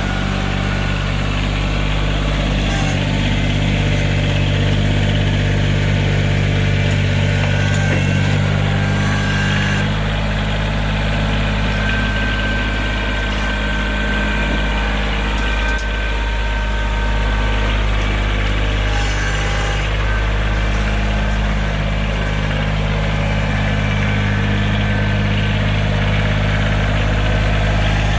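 Backhoe's diesel engine running steadily, its note shifting slightly about ten seconds in.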